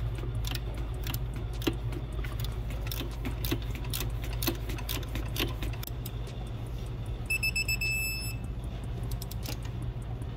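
Wrench clicking irregularly as a fitting nut is tightened, then about seven seconds in a digital torque wrench beeping for about a second, a few quick beeps running into a steady beep, the signal that it has reached the set torque of 18 foot-pounds.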